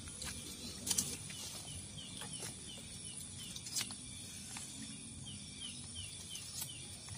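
Metal spoons clinking and scraping in plastic bowls: a few sharp clicks, the loudest about a second in. Under them, a faint run of small high chirps repeats evenly through the middle.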